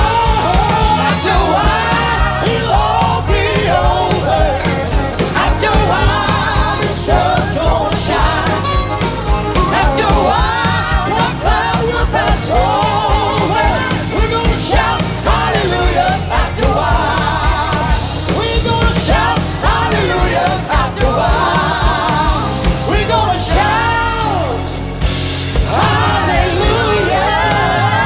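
Live gospel worship music: a full band with drums playing while singers sing with a wavering vibrato.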